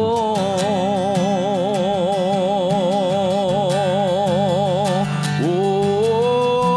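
A male voice holding a long sung note with a wide vibrato over strummed acoustic guitar; about five seconds in the voice slides up into a second, higher held note.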